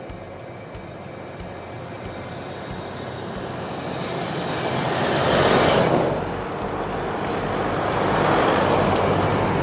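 Two 4WD vehicles driving past one after the other, their tyre and engine noise swelling and falling away; the first is loudest about halfway through, the second swells near the end.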